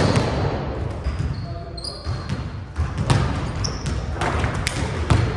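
Basketball bouncing on a hardwood gym floor, a series of irregular thuds echoing in the hall, with short sneaker squeaks between them.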